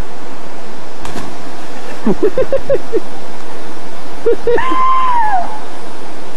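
River rapids rushing steadily and loudly. Voices call out over the water: a quick run of short calls about two seconds in, then a long high call that falls in pitch at its end, a little before the end.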